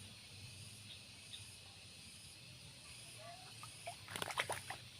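Faint, steady drone of insects, with a brief cluster of sharp clicks and rattles about four seconds in.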